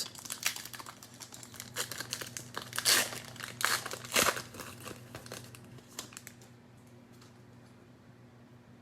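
Cellophane wrapper of a football-card cello pack being torn open and crinkled: a run of quick crackles and rips that dies away about two-thirds of the way through.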